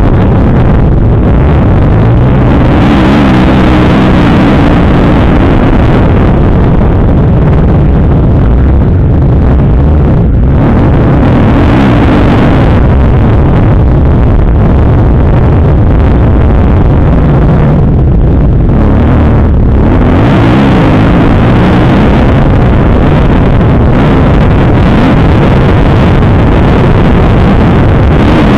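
Kawasaki KX250F four-stroke single-cylinder dirt bike engine revving hard and rising and falling in pitch as the rider works the throttle and gears around a motocross track, loud throughout, with brief throttle-offs about ten seconds in and again around eighteen to twenty seconds.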